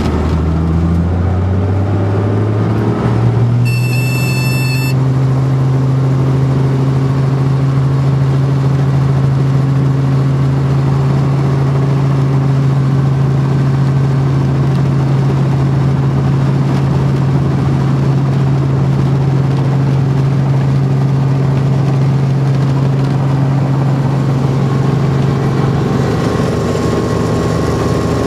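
Helicopter running on the ground, heard from inside the cabin: its engine and rotor note rises over the first three seconds, then holds as a steady hum. A brief high tone sounds about four seconds in, and the sound changes near the end.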